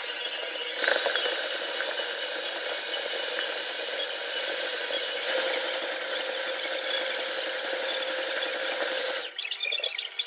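Electric stand mixer creaming butter and sugar in a stainless steel bowl. The motor switches on about a second in and runs steadily with a high whine that steps up in pitch about halfway, then cuts off suddenly near the end.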